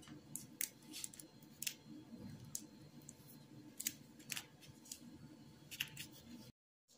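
Soft baked bread bun squeezed by hand, giving a scattered run of faint, short crackles and crinkles over a low steady hum. The sound cuts out just before the end.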